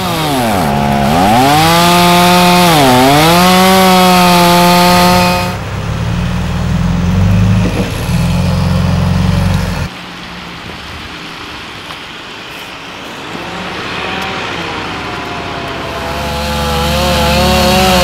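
Chainsaw running at high revs, cutting wood, its pitch dipping twice early on. It drops to a lower, rougher run about five seconds in and goes quieter around ten seconds. Near the end it revs back up high.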